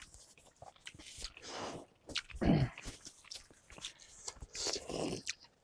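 Close-miked chewing of steamed momos: many small wet mouth clicks and smacks, with a few softer swells between them.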